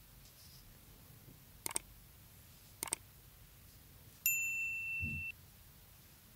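Subscribe-button animation sound effect: two quick mouse double-clicks about a second apart, then a notification-bell ding that rings for about a second.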